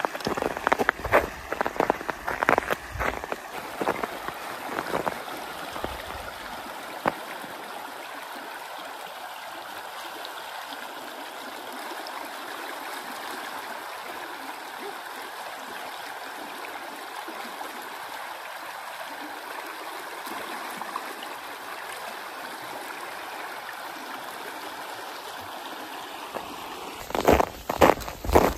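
Snowmelt creek flowing under the snowpack, heard through an open hole in the snow bridge as a steady rush of water. Crunching footsteps in snow with traction spikes come in over it at the start and again near the end.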